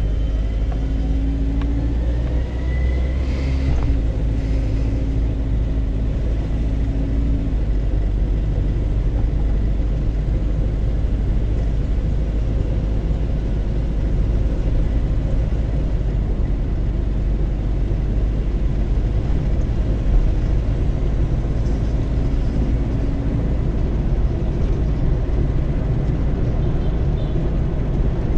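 Car driving on a street, heard from inside the cabin: a steady low rumble of engine and tyre noise.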